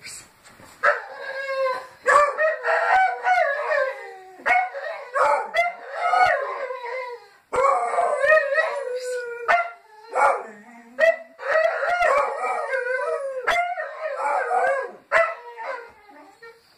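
Two Petit Basset Griffon Vendéens howling together in long, wavering cries, in several bouts with short breaks between.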